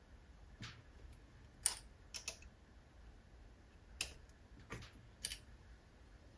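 Faint metal clicks and taps from a mini lathe's compound slide and tool post being handled while the slide is unscrewed and turned to a new angle. There are about seven sharp clicks at irregular intervals.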